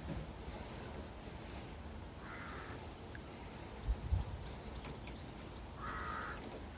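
Faint handling at a Welock smart lock cylinder as its adjustment screw is worked with a small key, with a soft knock about four seconds in. Two short harsh bird calls sound, about two and six seconds in.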